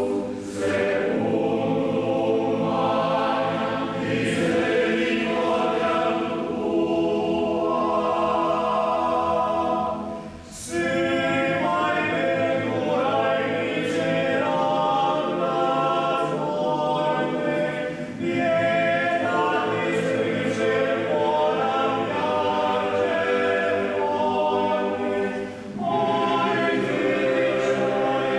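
Choir singing in long, sustained phrases, with short breaks between phrases about ten, eighteen and twenty-five seconds in.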